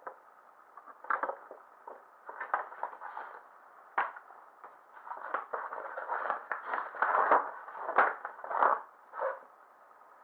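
Paper instruction leaflet rustling and crinkling as it is handled, unfolded and refolded: irregular crackles, busiest and loudest over the last few seconds.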